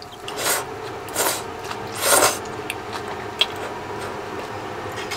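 A person slurping udon noodles: a few short, noisy slurps, the loudest about two seconds in.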